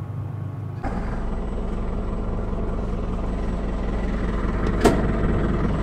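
Scania truck engine with an open exhaust idling with a steady low rumble, heard from the cab with the door open. A brief sharp sound cuts in about five seconds in.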